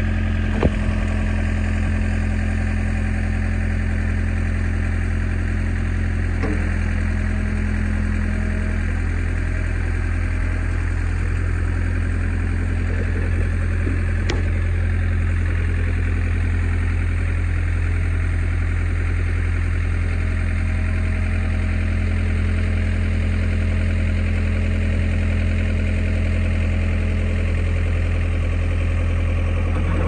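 Ford 555D backhoe's four-cylinder diesel engine idling steadily while the backhoe is worked. A higher hum comes in for several seconds at a time, twice, and there are a few light knocks.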